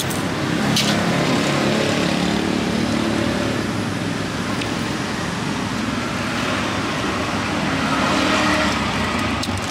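Steady road traffic noise from passing vehicles, swelling slightly a couple of times.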